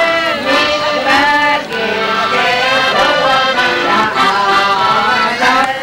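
A group of women singing to a piano accordion.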